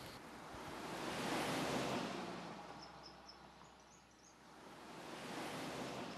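A soft rushing noise that swells up, dies away over a few seconds and starts to rise again near the end, with a few faint high chirps about halfway.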